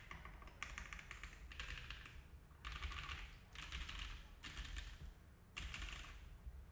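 Typing on an Iron165 R2 custom mechanical keyboard with lubed and filmed SOTC switches, an aluminum plate, no foam and GMK keycaps. The keystrokes come in about six quick runs with short pauses between them.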